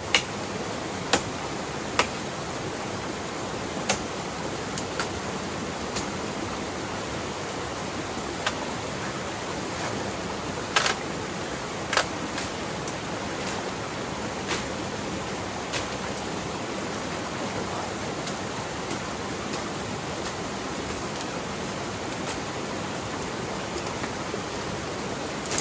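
Steady rushing of flowing water, broken by a few sharp, irregular knocks or taps.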